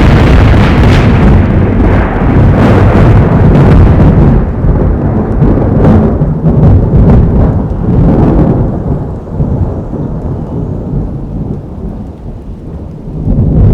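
Thunderstorm: a long, loud peal of thunder rumbling over rain, heavy in the low end, easing off after about eight seconds and swelling into another loud rumble near the end.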